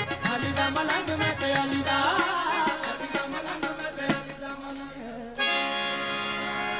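Qawwali ensemble playing, with tabla strokes over harmonium. About five seconds in, the drumming stops suddenly and a harmonium holds a steady chord.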